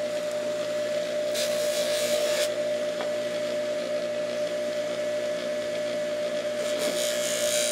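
Electric bench buffer running with a steady hum, a small chrome part pressed against its spinning polishing wheel for a hissing scrub about a second and a half in and again near the end.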